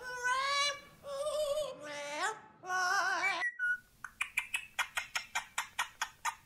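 An Amazon parrot sings in a human-like voice with a wavering vibrato. After a short break, an Indian ring-necked parakeet makes a rapid run of sharp clicking kiss sounds, about five a second, as it puts its beak to a knitted toy parrot.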